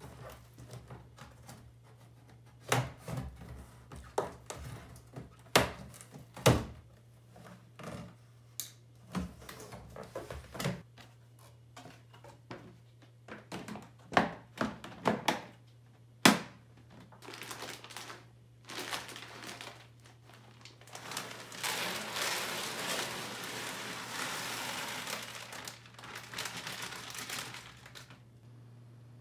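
A Deo-Toilet plastic cat litter box being unpacked and assembled: a string of sharp knocks, clacks and thunks of hard plastic parts and cardboard, with some crinkling. About two-thirds of the way through comes a steady hiss lasting several seconds, like litter granules poured into the plastic tray, which stops shortly before the end.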